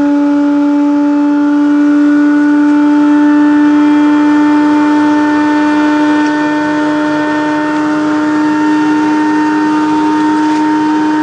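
The An-2's nine-cylinder Shvetsov ASh-62 radial engine running, heard from inside the cockpit as a loud, steady droning hum whose pitch creeps up slightly.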